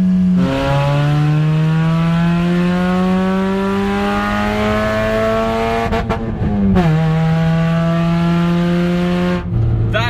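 Honda CR-V four-cylinder engine pulled hard at high revs, loud with no catalytic converter in the exhaust. The pitch climbs steadily as it accelerates and drops sharply at two gear changes, about half a second in and just under seven seconds in, then falls lower near the end as the revs come down.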